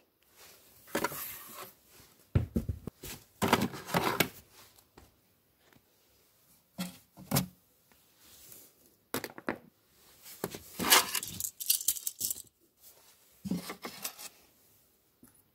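Small fidget toys and plush toys being handled and dropped into a fabric storage box: scattered clicks, knocks and rustles with short pauses between them.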